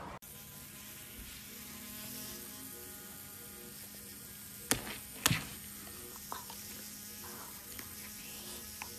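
Electric toothbrush buzzing steadily, with two sharp knocks half a second apart about halfway through.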